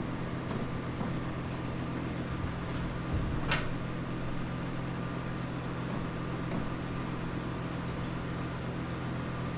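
A steady low mechanical hum, with a single light click about three and a half seconds in.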